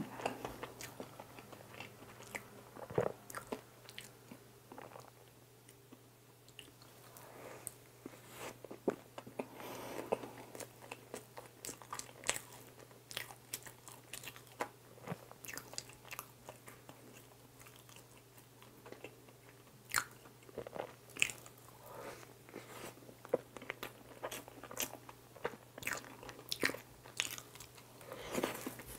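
Close-miked chewing of soft cream-filled bread: quiet, wet mouth sounds with scattered soft clicks and smacks, and a fresh bite near the end.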